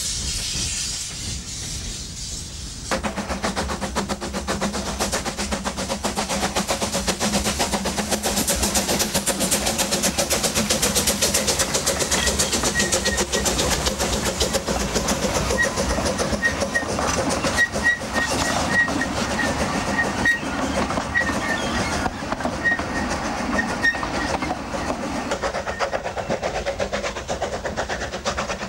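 Narrow-gauge steam train, the Jung 0-6-2 well-tank locomotive Graf Schwerin-Löwitz hauling its carriages: steam hissing, then about three seconds in it gets louder as the train runs with a rapid steady beat and rattle. A string of short high squeaks comes in the middle.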